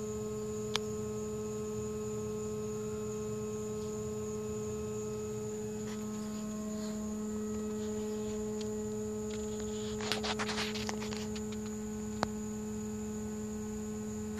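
Small 12-volt electric water pump in a model boat running with a steady electric hum. A short rustle of handling noise about ten seconds in, and a couple of faint clicks.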